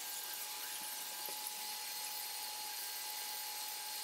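Background hum of a large station concourse: a steady high-pitched whine over a constant hiss.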